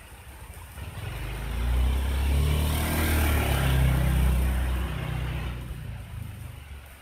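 A motor vehicle passing by on a wet road: its engine hum and tyre hiss swell over about two seconds, hold, then fade away, over a faint steady hiss of light rain.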